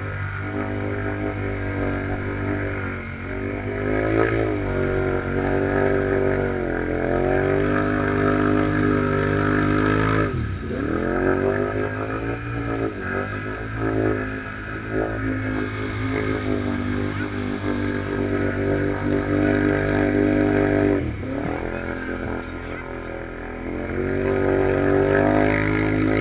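Big-bore Kawasaki Brute Force 840 V-twin ATV with dual Muzzy exhausts revving hard and unevenly while stuck in deep mud, its revs climbing and falling. The revs drop off sharply about ten seconds in and again near twenty-one seconds before climbing back. A steadier low engine note from another ATV idling close by runs underneath.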